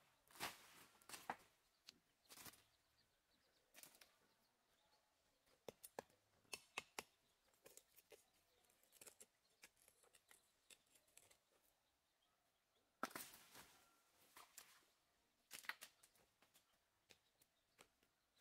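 Faint, irregular strikes and scrapes of a machete blade working into dry, loose soil, with clods of earth being pulled apart by hand.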